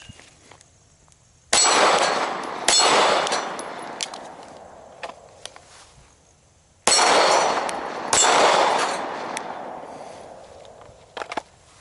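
Two pairs of gunshots, the shots in each pair a little over a second apart and the pairs about five seconds apart. Each shot is followed by the clang of a steel plate target being hit and a long, slowly fading echo.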